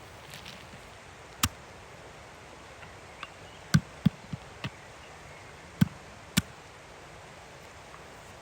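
Walnuts being chopped with a knife: about seven sharp chopping knocks at an irregular pace, with a short quick run of four in the middle.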